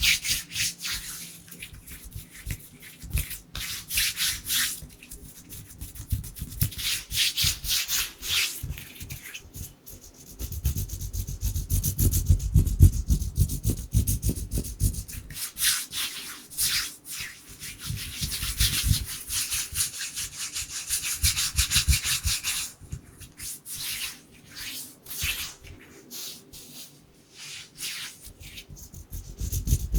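Bare, dry hands rubbing together close to the microphone in quick, uneven strokes. Around the middle a deeper, muffled rumble joins the hissing rubs.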